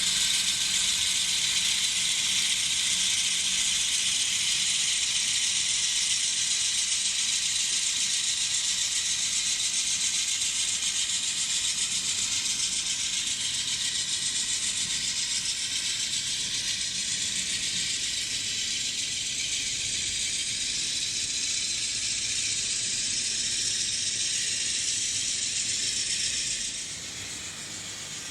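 N scale GE Dash 9-44CW model diesel locomotives running on the track, a steady mechanical rattle that drops in level near the end.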